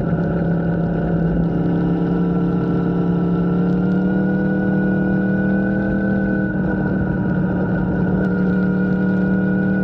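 An engine running steadily at an even speed, its pitch drifting only slightly.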